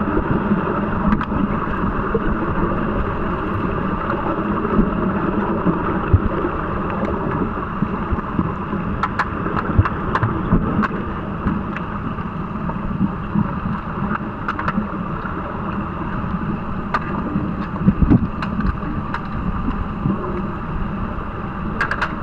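Underwater pool noise picked up by a submerged camera: a steady rushing wash of water and bubbles stirred by finning swimmers, with scattered sharp clicks and knocks.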